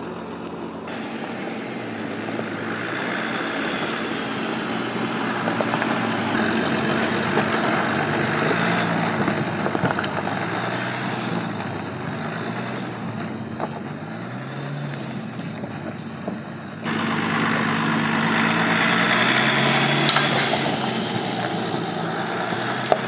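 Jeep Gladiator's 3.0-litre V6 turbodiesel engine pulling at crawling speed up a rocky trail, its pitch rising and falling with the throttle under a steady rushing noise. The sound jumps abruptly louder about 17 seconds in.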